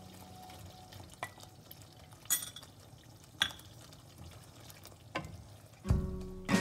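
A wooden spatula pushes paneer cubes off a plate into thick curry and stirs them around a pot, with a few sharp knocks of the spatula against the plate and the pot. Acoustic guitar music comes in near the end.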